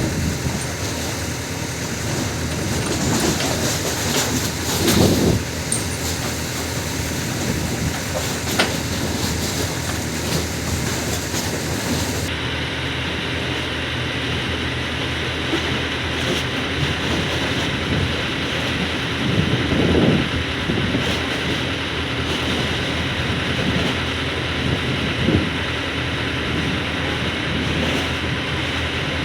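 Kobelco SK200 excavator's diesel engine running steadily under load while it works a steel barge door, with louder bursts of metal clanking, the strongest about 5 and 20 seconds in.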